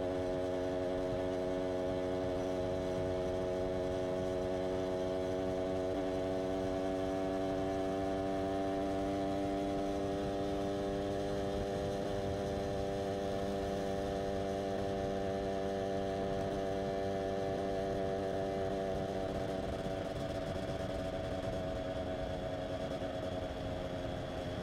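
Motorcycle engine heard from on board, running with a steady droning note at highway cruising speed. About three-quarters of the way through, the note drops slightly and gets a little quieter as the throttle eases.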